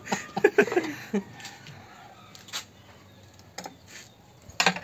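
A brief voice at the start, then a few scattered sharp clicks and knocks, the loudest near the end.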